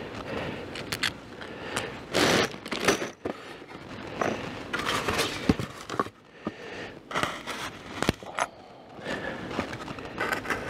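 Polystyrene foam insulation panels being handled against a wooden hive box: irregular scraping and rubbing in short bursts, with a few sharp clicks.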